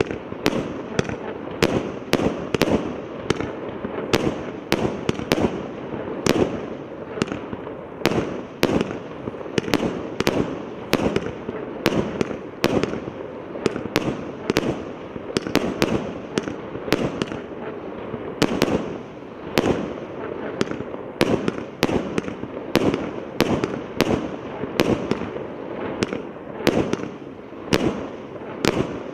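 Multi-shot consumer firework battery (Княжеский PK8028 cake) firing shot after shot, a sharp bang about twice a second with the noise of the bursts filling the gaps between.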